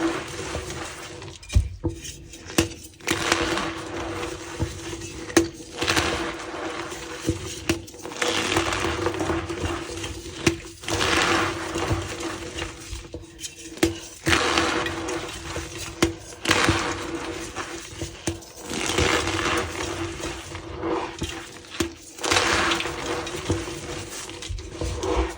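Reformed gym chalk blocks being squeezed and broken apart by hand, crunching and crumbling in repeated bursts every second or two, with a squeaky edge.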